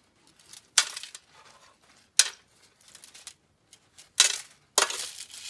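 Dry pasta pieces rattling as they are scooped from a foil-lined tray and dropped into a plastic disposable glove: four sharp clatters with softer clicks between.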